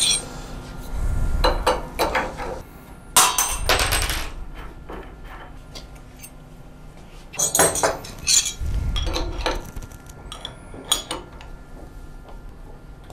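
Metal clinks and knocks from a tool change on a CNC router spindle: spanners on the collet nut and parts being handled. They come in several separate clusters, loudest about three seconds in and again around eight seconds, with dull bumps under some of them.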